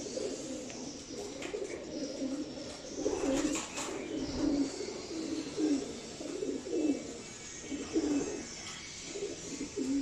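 Homing pigeons cooing over and over, several birds calling in overlapping low, pulsing coos. A brief rustle comes about three seconds in.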